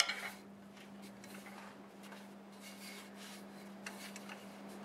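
Faint, light scratching and rubbing of hand work on a stopped mimosa bowl blank, over a steady low hum.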